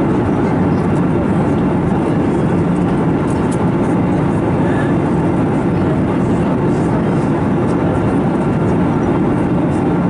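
Steady cabin noise of an Airbus A321neo in cruise: the rush of airflow over the fuselage blended with the drone of its CFM LEAP-1A engines, unchanging and mostly low in pitch.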